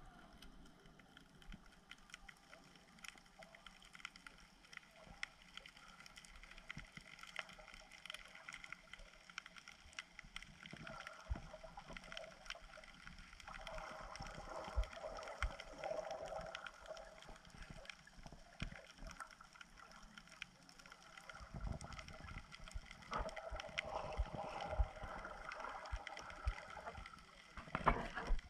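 Faint underwater ambience: scattered clicks and crackles with a muffled water noise that swells twice, once in the middle and again near the end.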